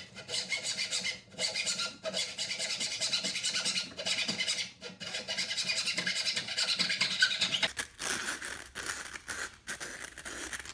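Power drill boring into a wooden deck railing, cutting in several runs with short pauses between them. The bit is widening an old carpenter bee hole that runs crooked, and the bit shifts in it.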